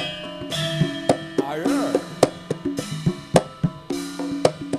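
Javanese gamelan playing tayub dance music: sharp hand-drum strokes, several a second in an uneven pattern, over steady ringing bronze tones.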